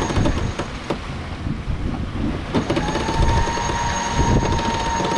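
Electric sailboat winch whirring with a steady whine, starting about halfway in, as it hauls the genoa car forward along its track to trim the headsail. Wind and water rush past the hull underneath.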